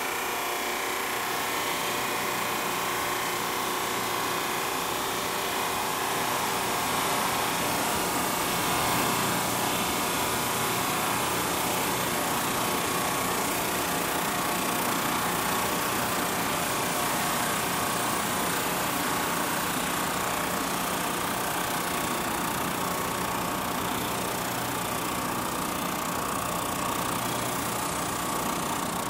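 Performax 16-32 Plus drum sander running steadily as a black walnut board feeds through on its conveyor belt under the sanding drum.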